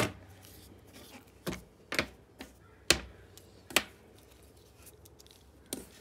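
Handling noise from small tools and parts on a wooden tabletop: about six sharp clicks and light knocks at uneven intervals, the loudest right at the start and about three seconds in.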